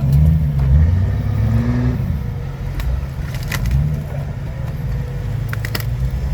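Off-road rig's engine running at low crawling speed, picking up revs briefly near the start and again a little past halfway, with a few sharp clicks or knocks about three and a half and five and a half seconds in.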